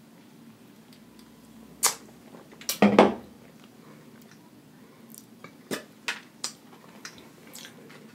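A few sharp clicks and knocks at the table, the loudest about three seconds in, from a soda can being set down and food being handled in a foam takeout box.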